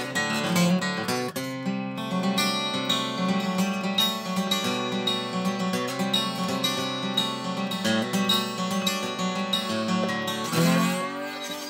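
Instrumental passage of a song: acoustic guitar picked and strummed, with no singing.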